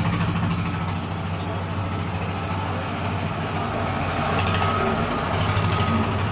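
A steady low machine hum over a constant noisy background, running without a break.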